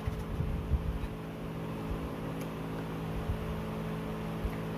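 A steady low hum from a running room appliance, with a few soft low thumps in the first second and some faint clicks.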